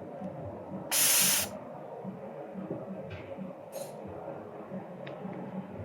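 A short, loud burst of air hiss about a second in, with a fainter one near four seconds, as air is blasted to clear molten solder from the laptop board's power-jack holes. A steady low background noise runs underneath.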